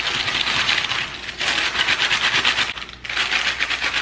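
Parchment paper crinkling and rustling in three bursts as the paper-lined glass baking dish is gripped by the paper's edges and jostled to level the batter.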